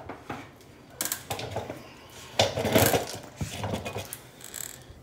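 Clinks and rattles of metal hand tools and hardware being handled, in a few short bursts of clicks.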